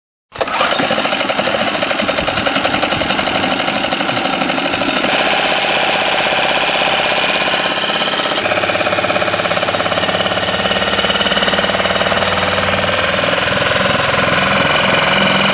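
Four-stroke 6 hp outboard engine running steadily during a test run, its lower unit in a barrel of fresh water; the sound cuts in abruptly and its tone shifts slightly a couple of times.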